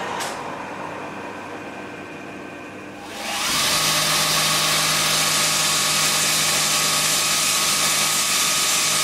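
Bench grinder with a belt-sander attachment running. About three seconds in, a cast metal plate is pressed against the abrasive belt, and a loud, steady grinding hiss starts and holds.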